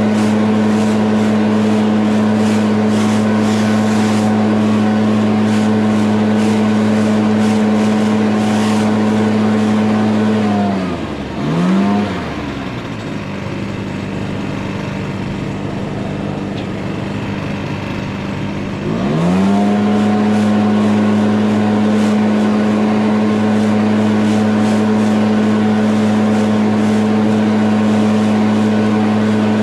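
Lawn mower engine running steadily at full speed; about ten seconds in its pitch falls away as it throttles down, and about nineteen seconds in it climbs back up to full speed and holds steady.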